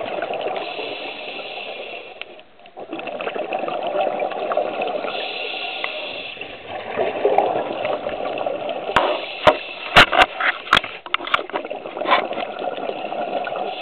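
A scuba diver's regulator breathing underwater: hissing inhalations roughly every five to six seconds alternating with bubbly exhalations. A cluster of sharp clicks comes about nine to eleven seconds in.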